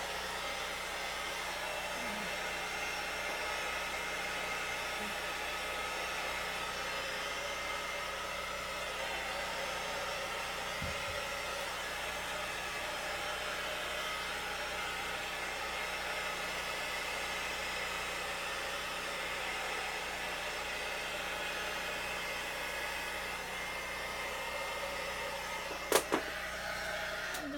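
Heat gun blowing steadily over a fresh resin pour, an even whir of hot air that holds its level throughout. A sharp click comes near the end.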